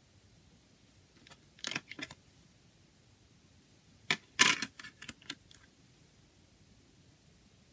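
A CD being pulled off the centre hub of a plastic jewel case and pressed back on, with sharp plastic clicks and rattles. There are a couple of light clicks about two seconds in, then a louder cluster of clicks from about four to five seconds in.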